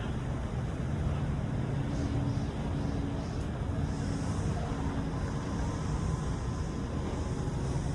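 Fishing boat's engine running steadily, a low drone.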